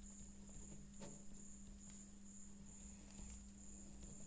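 Quiet room tone with a steady low hum and a faint high-pitched tone pulsing about one and a half times a second, with faint scratches of a ballpoint pen writing on paper.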